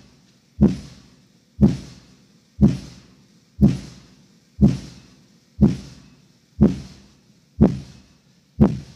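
Danley BC412 tapped-horn subwoofer playing short bass tone bursts: a sharp thump about once a second, each dying away within half a second.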